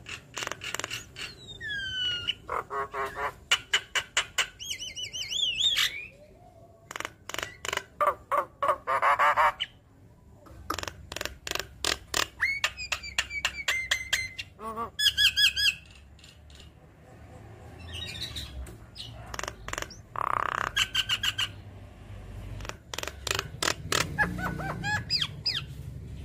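Javan myna singing a varied run of harsh squawks, fast clicking rattles and short whistled glides, in bursts separated by brief pauses.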